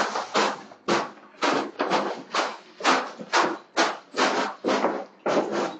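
Crushed ice crunching and scraping as gloved hands dig and scoop through it in a foam fish box, a rhythmic stroke about twice a second.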